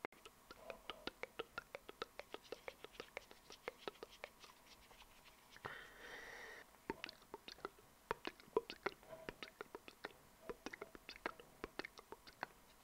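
Close-miked ASMR mouth sounds: quick wet clicks and smacks of lips and tongue, several a second, with a breathy hiss lasting about a second about six seconds in.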